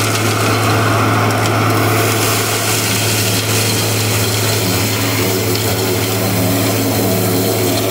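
Vacuum excavation truck running, air rushing up its suction tube: a loud, steady hiss over a constant low drone.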